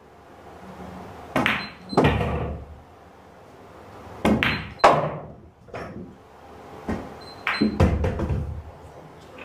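Pool balls clacking on a table, three shots in turn. Each is a sharp cue-tip strike followed moments later by a louder ball-on-ball click and a low thud as balls run and drop.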